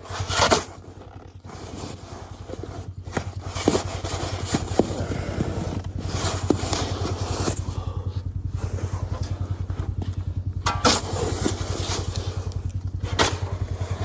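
Polaris Sportsman 570 ATV engine running steadily with a regular low pulsing. Bursts of scraping or rushing noise come and go over it several times.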